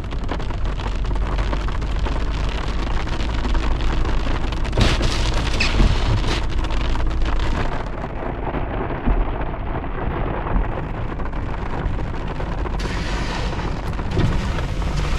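Heavy storm downpour drumming on a car body, heard from inside the cabin, with a constant deep rumble underneath.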